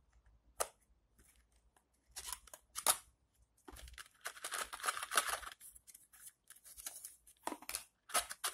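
Small cardboard box being handled and opened by hand: scattered sharp clicks and taps, with a longer scraping rustle of cardboard about four to five seconds in.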